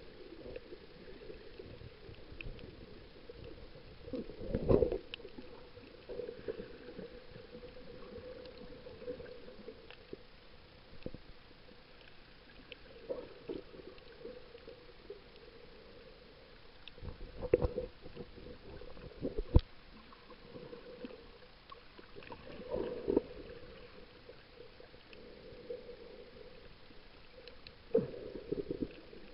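Muffled underwater sound picked up by a camera just below the surface: a faint steady hum and water sloshing, broken by dull knocks and bumps about five seconds in, twice in quick succession near the middle, and again near the end.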